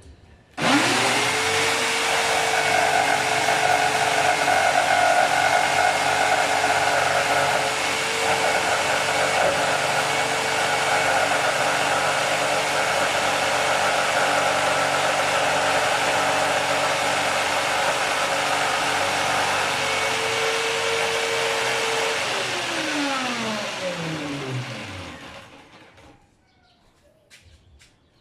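Electric power tool cutting the round speaker hole in the wooden speaker-box panel. Its motor speeds up about half a second in and runs at a steady pitch under a harsh cutting noise. It is switched off near the end and winds down over about three seconds.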